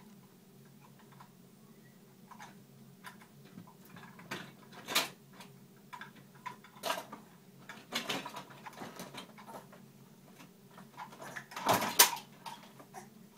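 Plastic toys knocking and clattering as children handle them, in irregular sharp clicks and knocks; the loudest come about five and twelve seconds in.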